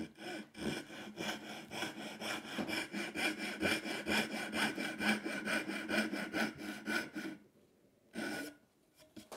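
Hand saw cutting a dovetail tail into a mahogany board held in a vise, in quick, even back-and-forth strokes. The sawing stops about seven seconds in, and a brief scrape follows.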